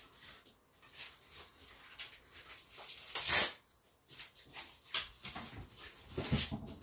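Cardboard packaging being handled and pulled apart: scattered rustling and scraping, with one louder scrape about three seconds in.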